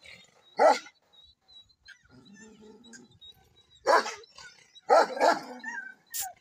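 Pakistani bully kutta (large mastiff-type dog) barking: three loud, deep single barks, one about half a second in, one about four seconds in and a longer one about five seconds in.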